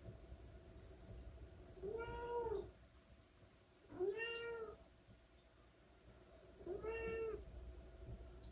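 Domestic cat meowing three times, a few seconds apart, each meow short and rising then falling in pitch.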